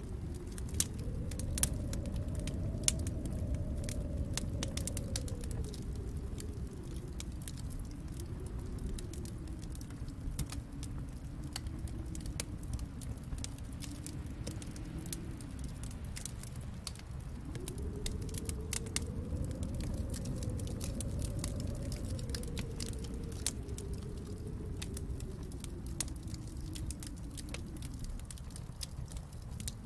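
Wood fire crackling, with frequent sharp pops and snaps over a low rumble that swells and eases, once in the first few seconds and again around two-thirds of the way through.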